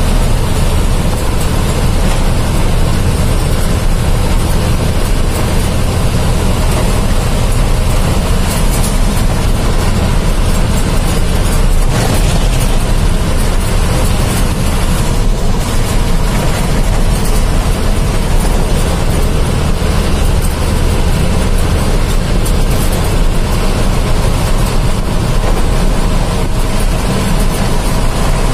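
Steady engine hum and road noise heard from inside a vehicle cruising along a highway, with one brief click about twelve seconds in.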